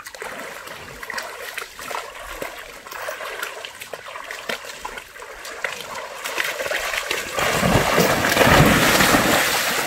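Water splashing and trickling in a shallow stream, with small scattered splashes, then heavier, louder splashing from about seven seconds in as something wades through the water.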